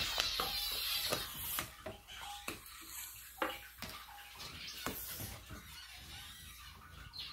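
Vinegar fizzing on baking soda inside a plastic bottle: a hissing that is strongest for the first second and a half, then fades. Short clicks and rubs of hands working a balloon over the bottle's neck are mixed in as the gas fills the balloon.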